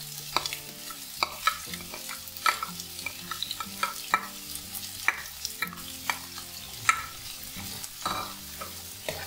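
Chopped onions sizzling in hot coconut oil in a non-stick kadai as they are sauted, with a spatula scraping and clicking against the pan again and again as it stirs them.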